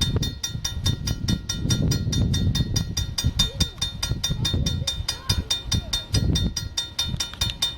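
Passing train rumbling beside a railway crossing while the crossing bell rings in fast, even strokes, about six a second.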